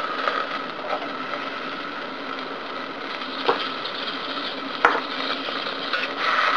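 Butter melting and sizzling in a stainless-steel saucepan, a steady fine crackle, with a sharp click about five seconds in.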